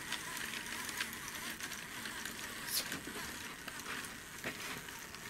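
Small battery-powered electric motor in a plastic construction-kit helicopter, whirring steadily through its gears and pulleys as the rotor spins, with a few faint clicks from the gearing.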